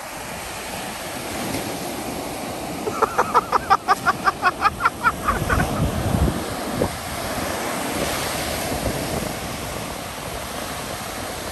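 Ocean surf breaking and washing up a sandy beach in a steady rush. About three seconds in, a quick run of about a dozen short high-pitched cries, around five a second, lasts a couple of seconds.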